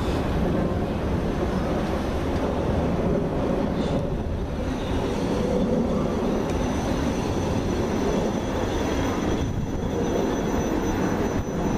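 South Western Railway Siemens Desiro electric multiple unit running past along the platform: a steady rumble of wheels on rail, with a thin high whine from about four seconds in.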